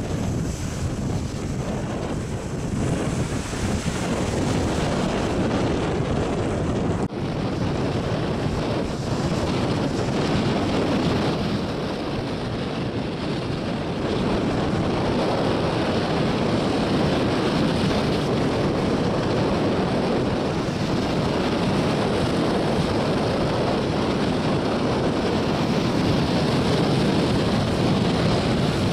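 Storm wind buffeting the microphone over the steady rush of rough sea surf breaking against a rock jetty.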